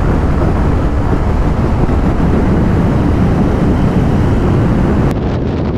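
Wind rushing and buffeting over the microphone of a 125 cc scooter ridden at speed, with the scooter's engine and road noise underneath. The sound changes abruptly near the end.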